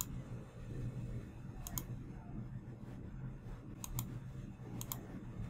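Computer mouse clicks, about four short sharp clicks with most coming in quick pairs, over a low steady hum.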